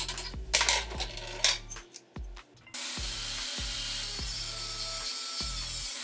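A few clicks and knocks of metal being handled, then about two and a half seconds in an angle grinder bites into the rusty steel hammer head and grinds steadily with a harsh, hissing sound. Background music with a steady beat plays underneath.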